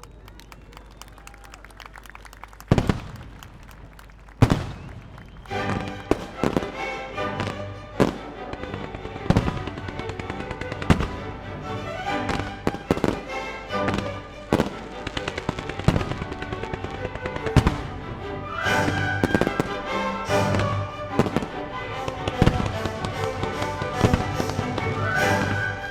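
Aerial firework shells bursting: two heavy bangs with echoing tails, then a fast run of bursts, over music that comes in about five seconds in.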